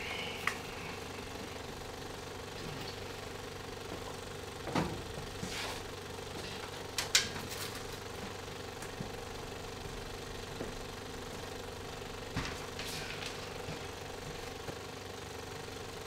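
Film projector running in a projection booth with a steady mechanical hum, with a few sharp clicks and knocks from a metal film reel being handled, the loudest about seven seconds in.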